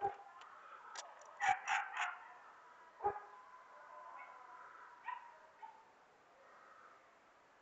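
Dogs barking in short separate barks: one right at the start, a loud cluster of three about a second and a half in, another about three seconds in, and a fainter one near five seconds.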